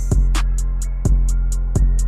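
Background music: a deep sustained bass with a steady beat of drum hits and high ticking cymbal strokes between them.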